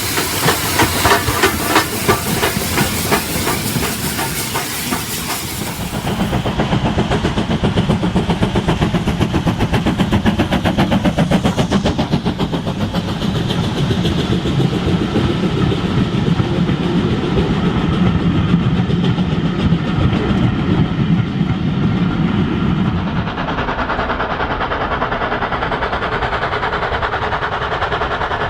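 Model steam train running: steam hiss with a pulsing chuff for the first six seconds, then a steady rumble with rapid clicking of wheels over the track.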